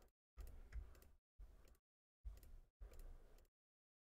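Near silence broken by a few faint computer mouse clicks and key taps, heard in short patches of room hum.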